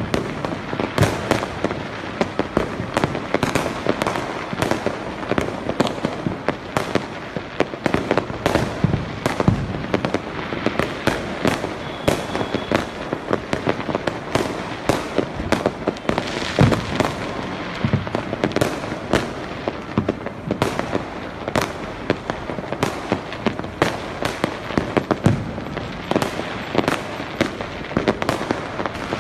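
Many firecrackers and fireworks going off at once: a continuous dense crackle with sharp bangs, several a second, irregularly spaced, from crackers and aerial shells bursting.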